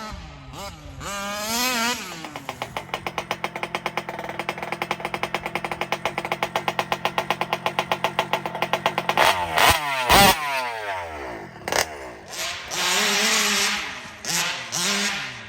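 Small gas two-stroke engine of a 1/5-scale RC car revving up, then running with a steady, evenly pulsing note for several seconds. Quick revs and a couple of sharp knocks come about ten seconds in, followed by further bursts of revving.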